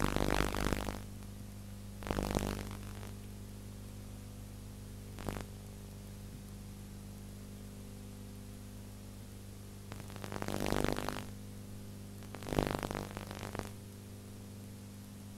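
Steady electrical hum with its overtones on an old film soundtrack, broken by about five short, rough bursts of noise: one right at the start, one about two seconds in, a brief click around five seconds, and two more near eleven and thirteen seconds.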